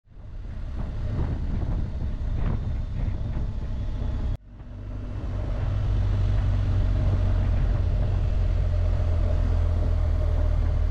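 Motorcycle on the move: the BMW R 1250 GS Adventure's boxer-twin engine runs at a steady pace, mixed with wind noise. The sound fades in, cuts out for an instant about four seconds in, and then comes back up and holds steady.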